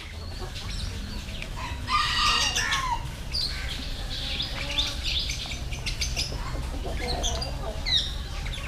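Domestic chickens: a rooster crows once about two seconds in, among scattered clucking and short bird chirps.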